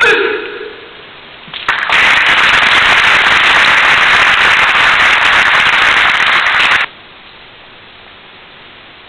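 A short, loud cry at the very start, then audience applause: dense crackling clapping for about five seconds that cuts off abruptly.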